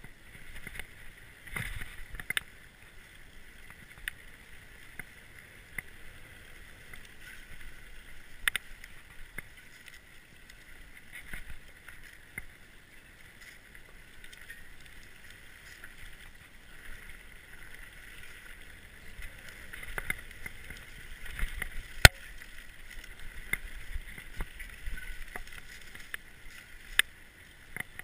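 Orbea Occam mountain bike ridden over a dirt singletrack: a steady rolling hiss with frequent rattles and sharp knocks as it hits bumps, the loudest knock about 22 seconds in.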